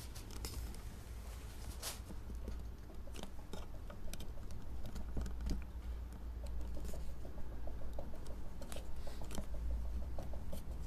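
Oil paintbrush dabbing and scratching on a stretched canvas: a run of soft, quick taps, coming thicker and louder in the second half, over a low steady hum.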